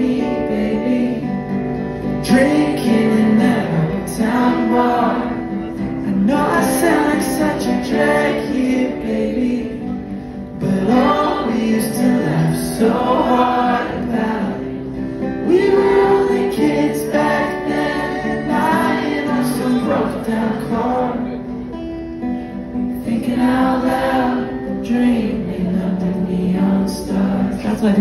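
Live acoustic band performance: guitar played with sung vocals, amplified through a club PA.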